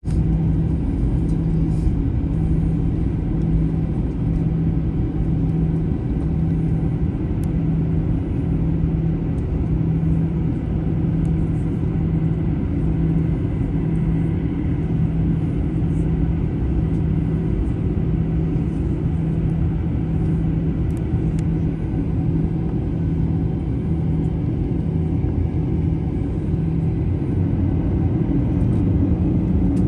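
Cabin noise inside an Airbus A321-212 on the ground before takeoff, its CFM56 turbofans at idle: a steady low rumble with a constant hum.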